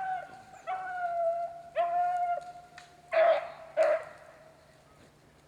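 A beagle baying: three long drawn-out howls, then two shorter, louder barks.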